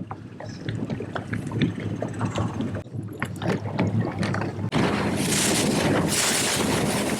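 A boat under way, its motor running low with choppy splashes against the hull. From about five seconds in, loud wind rushes over the microphone.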